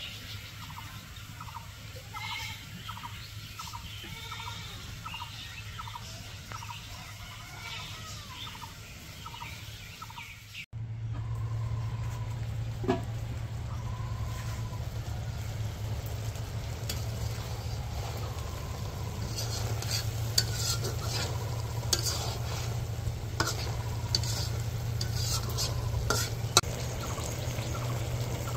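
Food frying in a pan while it is stirred, with a spatula clicking and scraping against the pan, busier after a cut about ten seconds in. Before the cut, a fowl calls with a short repeated note about two times a second.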